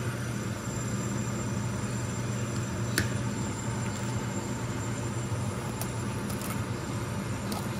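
A single sharp crack about three seconds in as an egg is knocked open one-handed, followed by a few faint clicks, over a steady low hum.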